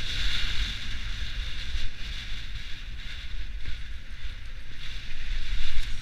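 Skis sliding over snow in a steady hiss during a downhill run, with wind rumbling on the microphone.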